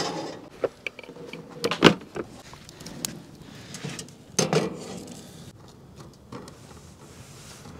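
Clatter of cooking: a frying pan of chopped onions handled on a wood stove's cooktop and stirred with a wooden spatula. A few sharp knocks and clicks come at the start and again about two seconds in, the loudest, with a rougher clatter after four seconds.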